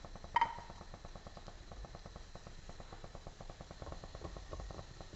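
Water with soya chunks heating in a nonstick frying pan, crackling and ticking with small bubbles. A single sharp clink about half a second in, and soft stirring with a spatula near the end.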